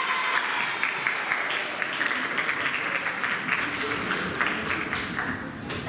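Audience applauding; the clapping thins out near the end.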